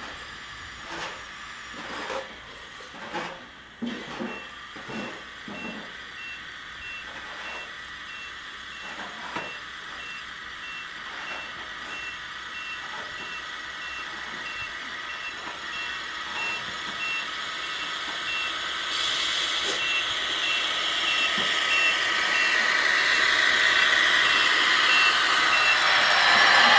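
A high electronic beep repeating at an even rate. Over it come a series of sharp knocks in the first ten seconds or so, then a hiss that builds steadily louder through the second half.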